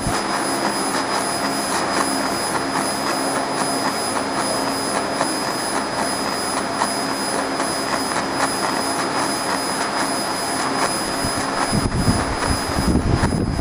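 CO2 laser marking machine running while it engraves a wood sheet: a steady rushing noise with two thin high tones held throughout. An uneven low rumble joins near the end.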